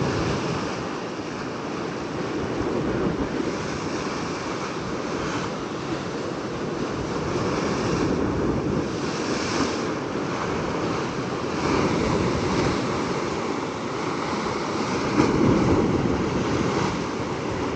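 Ocean surf washing against a sandstone rock ledge, swelling and easing as each wave comes in, with wind on the microphone.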